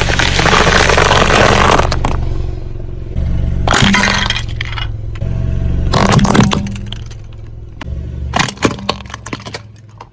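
A car tyre rolling over and crushing brittle objects: several bursts of cracking and crunching, the longest in the first two seconds, the last a scatter of sharp snaps, over the car engine's steady low running.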